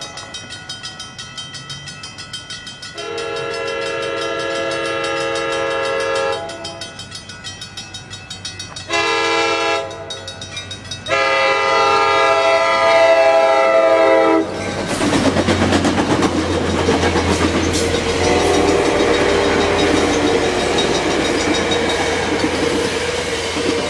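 Altamont Corridor Express commuter train's horn sounding for the grade crossing in a long blast, a short one and another long blast, with the crossing bell ringing in the gaps. The train then passes close by with a loud rumble and the clickety-clack of its wheels.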